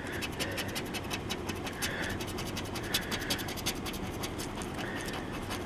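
A coin scratching the latex coating off a scratch-off lottery ticket, in quick repeated strokes.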